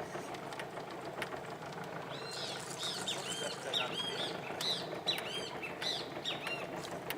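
Birds calling in a quick run of short, arched chirps that starts about two seconds in and goes on almost to the end. Under them is a steady low engine hum.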